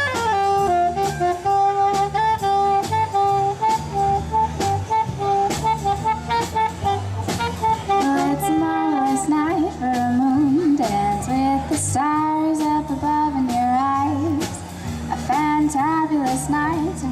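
Live band music: a saxophone plays the melody over drums, electric bass and guitars, and a female singing voice comes in about halfway through.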